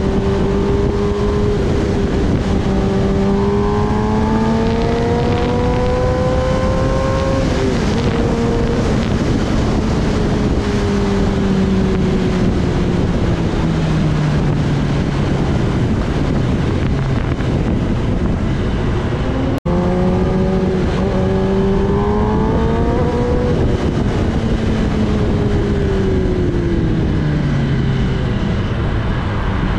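Kawasaki Ninja ZX-10R's inline-four engine under way, its pitch rising as the bike accelerates, then falling away as the rider eases off; the pattern comes twice. Wind rushes over the microphone throughout, and the sound drops out for an instant a little past halfway.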